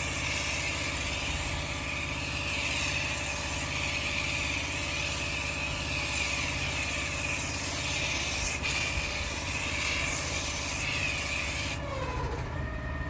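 Engine-driven pressure washer running steadily while its high-pressure water jet hisses against paving. About 12 seconds in the spray cuts off suddenly and the engine note dips as it keeps running.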